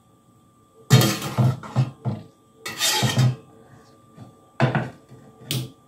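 A metal slotted spoon knocks and scrapes against a stainless steel pot and plate as marinated chicken pieces are dropped into hot oil. The clatter comes in several short bursts with quiet between them.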